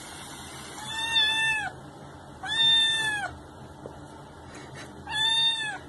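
A kitten meowing three times, high-pitched, each call about a second long with a slight rise and fall in pitch.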